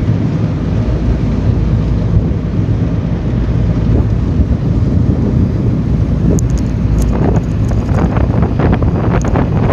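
A river ferry's engine running steadily with a low rumble, heard from the back of the boat, with wind buffeting the microphone. Rough crackling builds up near the end.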